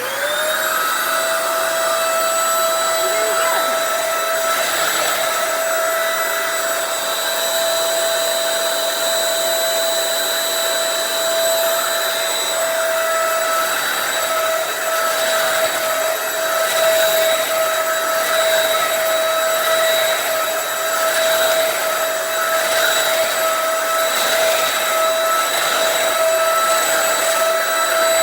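Dirt Devil vacuum cleaner motor spinning up as it is switched on, then running steadily with a high-pitched whine over a rush of air.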